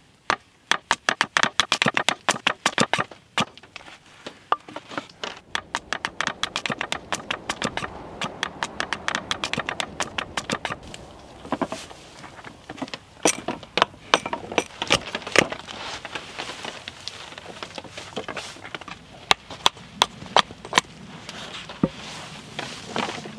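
A hatchet knocking rapidly on a wooden stick against a chopping log, sharp wooden knocks about four or five a second for the first half. After that come fewer, scattered wooden clacks as split slats are laid against one another.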